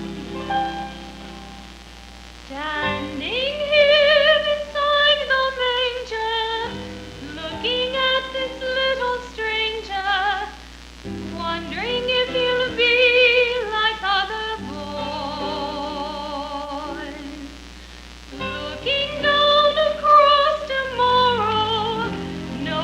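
A woman's high voice singing a hymn-like song in phrases with a wide vibrato, over a soft keyboard accompaniment; the voice comes in about three seconds in and pauses briefly in the middle while the accompaniment carries on.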